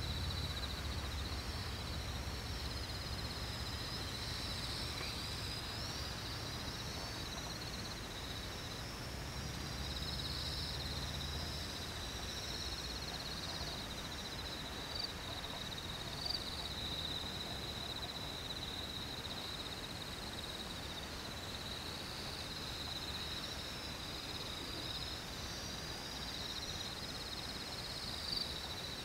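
Insects trilling steadily in a grassy field, with a low rumble underneath and a few short chirps now and then.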